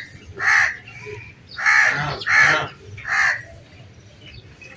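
A crow cawing: four harsh caws, one about half a second in and three more in quick succession a little after the second mark.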